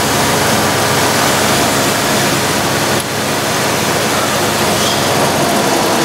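A 2000 Chevy Cavalier's four-cylinder engine idling, heard close up in the engine bay as a steady rushing run, with a short dip about halfway through. The engine has a vacuum leak through a leaking power brake booster, and the idle changes as pliers pinch off the booster's vacuum hose.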